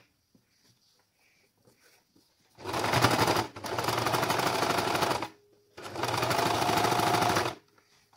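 Electric sewing machine stitching a cloth face mask, topstitching close around its edge. After a quiet pause it runs steadily for about two and a half seconds, stops briefly, then runs again for about two seconds.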